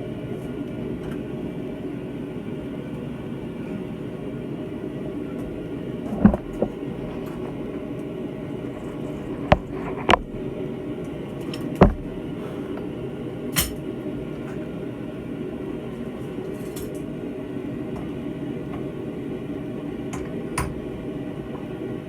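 Steady low roar of a blacksmith's forge, with about six sharp metal clanks of tools on hot steel while a railroad spike's handle is being twisted.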